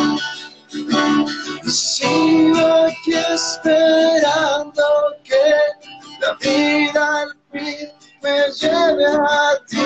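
A song played on a strummed acoustic guitar, with a singing voice carrying a wavering melody.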